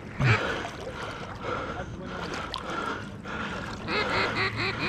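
Canada geese honking, with repeated calls throughout and a quick run of honks, about five a second, near the end. A short low thump comes just after the start.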